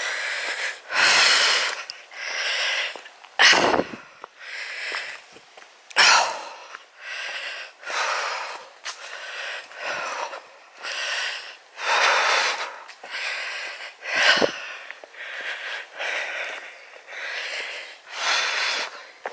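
A walker breathing hard close to the microphone, about one loud breath every second, from the effort of climbing a steep stony track.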